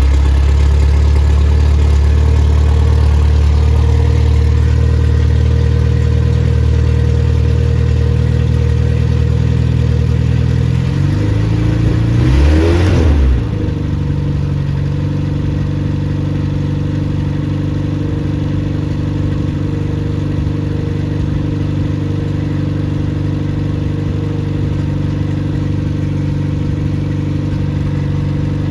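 Rebuilt Triumph Spitfire 1500 four-cylinder engine running with no muffler, just after starting; the engine is freshly rebuilt, still tight and not yet broken in. About eleven seconds in, its note wavers and shifts over a couple of seconds, then it settles into a steady, slightly quieter run.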